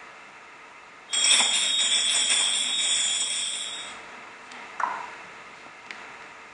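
Shaken metal jingles, as of small bells, ring for about three seconds, starting suddenly about a second in and fading away. A single short knock with a brief ring follows about a second later.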